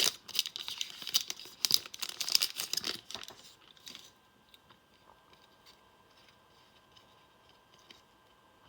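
A foil trading-card pack wrapper being torn open and crinkled for the first three or four seconds, then near quiet.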